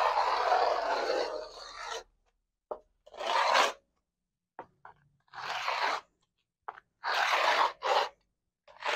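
Carbide-tipped scoring tool scraping through freshly applied textured microcement along a straight edge: one long stroke of about two seconds, then several shorter ones. The coating is only a couple of hours old and still soft, so the tool cuts through it easily.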